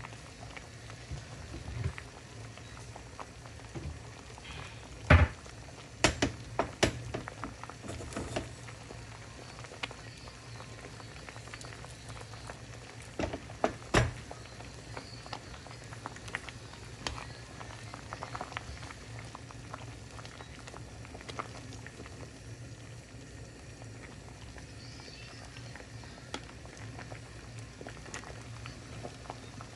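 Seaweed soup boiling in a pot, a steady bubbling throughout. Sharp knocks and clinks come in a cluster about five to eight seconds in and again around fourteen seconds.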